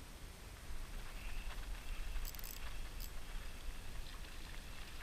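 Wind buffeting the microphone as a low, steady rumble that grows a little louder about a second in. A short high rasp comes a little over two seconds in, and a brief click follows about a second later.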